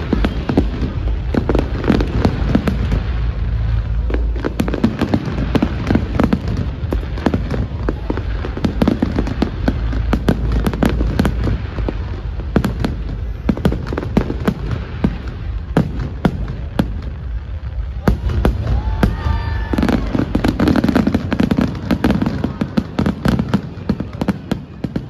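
Fireworks display: aerial shells bursting overhead in a dense, irregular barrage of bangs and crackles over a low rumble.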